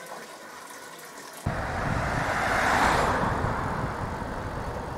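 Faint running water for about a second and a half, then an abrupt change to a loud rush of wind and road noise that swells around the middle and eases off.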